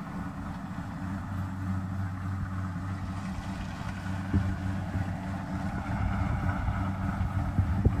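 Kubota DC-70 Plus combine harvester's diesel engine running steadily as it harvests rice, a low hum that grows a little louder in the last few seconds as the machine draws nearer.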